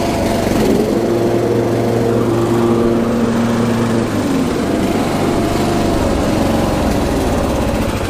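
Riding lawn mower's engine running steadily with the cutting deck engaged, a humming tone fading out about four seconds in; the mower running and its deck working after a repair.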